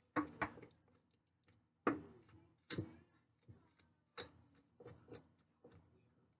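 Irregular knocks and handling noises, about nine in a few seconds, each short and fading fast, from hands working a raw whole chicken as it is skinned and cleaned.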